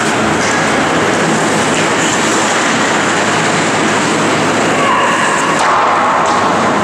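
Steady din of an ice hockey game in an indoor rink: skates and sticks on the ice with the crowd and arena echo blending into one continuous loud wash of noise. A higher, voice-like tone rises out of it about five seconds in.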